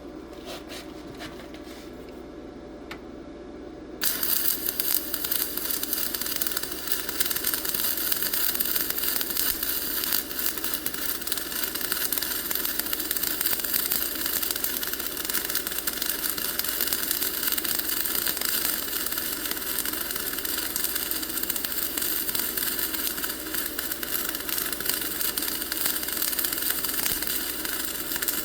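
Dual shield (gas-shielded flux-cored) wire welding arc from a Simder SD4050 Pro set at 21.5 volts and 292 wire speed, laying a bead. After a few clicks over a low hum, the arc starts suddenly about four seconds in and runs on as a steady, dense hiss.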